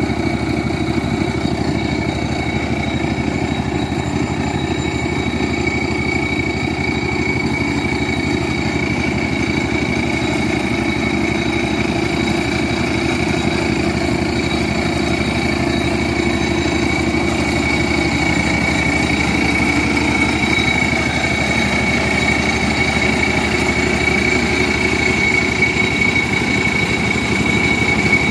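Engine of a homemade mini tractor running steadily as it drives a front-mounted mower deck cutting grass, with a steady high whine above the engine sound.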